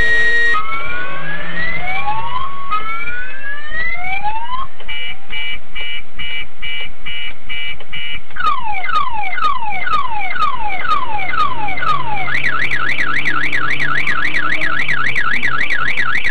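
Car alarm siren cycling through its tone patterns: a run of rising whoops, then a rapid steady beeping, then a string of falling sweeps, then a fast warble over the last few seconds.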